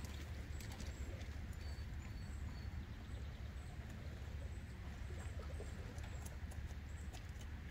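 Outdoor wind rumbling on the microphone, with faint scattered clicks and a few short, high chirps.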